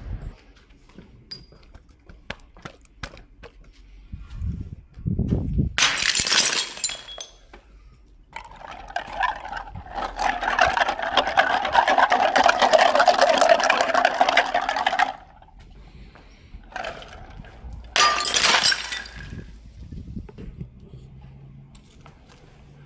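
Two large 3-litre glass jars, filled with liquid and plastic toys, smashing and shattering, one about six seconds in and the other about eighteen seconds in. Between the two crashes there is a steady noisy sound lasting about seven seconds, the loudest part of the stretch.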